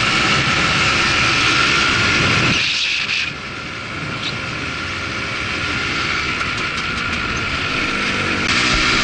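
Polaris Trail Blazer ATV engine running while riding. About three seconds in it drops off sharply, then builds slowly again, and near the end it jumps suddenly back to full level.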